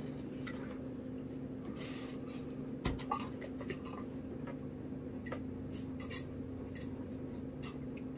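Quiet eating sounds: scattered small clicks and mouth sounds from forks working into pie and from drinking out of a glass mug, over a steady low hum. One dull thump about three seconds in.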